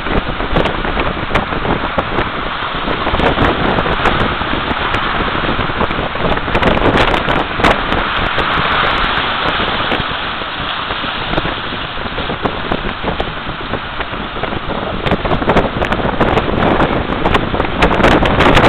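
Stormy sea surf washing and breaking against pier pilings and rocks, mixed with strong wind buffeting the microphone, a loud, continuous rushing noise with scattered crackles.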